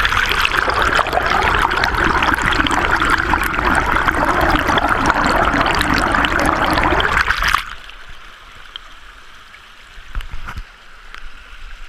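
Creek water rushing and bubbling, heard through a camera held underwater beneath a sluice box. About seven and a half seconds in it cuts off suddenly to a much quieter, steady stream sound.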